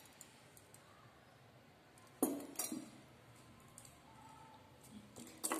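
Gold-plated nakshi pendant with dangling metal balls clinking as it is handled and set down on a cloth-covered table: a couple of light clinks about two seconds in, and a few more near the end.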